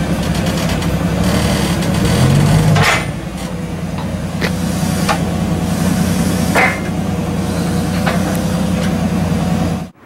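Forklift engine running steadily while it lowers a steel wrecker unit hung on a chain onto a semi truck's frame. The engine note drops about three seconds in. Sharp metal clanks come at irregular intervals, about six of them, as the steel unit and chain knock against the frame. The sound cuts off suddenly just before the end.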